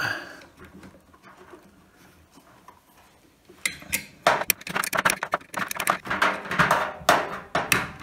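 Metal spanner clicking and scraping against a bolt on the idler pulley mounting inside a tumble dryer as the bolt is tightened: a rapid, irregular run of metallic clinks beginning about three and a half seconds in.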